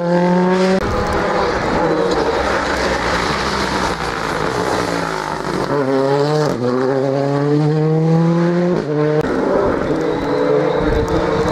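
Rally car engines at full throttle on a wet stage road: one car revving hard as it pulls away, then another coming on at speed, its engine note climbing through the gears with an upshift about six and a half seconds in and another near nine seconds. A hiss of wet tyres and spray runs under the engine noise in the middle.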